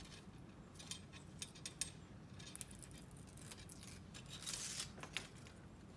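Paper backing peeling off a self-adhesive measuring tape while fingers press and rub the tape down onto a metal T-track: faint scratchy rustling with a few light clicks, and a longer peeling rasp about four and a half seconds in.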